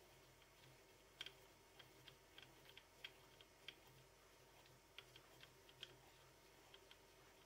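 Faint, irregular light clicks and ticks, a few a second, from the tailstock of a DIY micro lathe as its quill and live centre are wound forward toward the chuck by hand.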